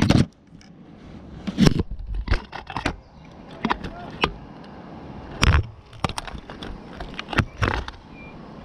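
Handling noise: irregular knocks, clicks and scrapes as the Arrma Kraton V4 RC truck and the camera pressed against it are moved about on a gritty path, with the loudest knocks just at the start, about two seconds in and about halfway through.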